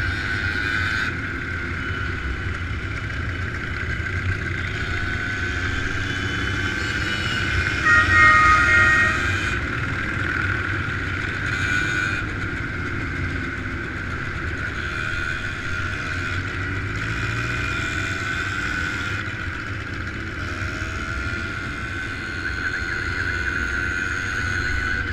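Motorcycles running in a moving group, heard from one of the bikes: steady engine and wind noise, with a brief louder blast about eight seconds in.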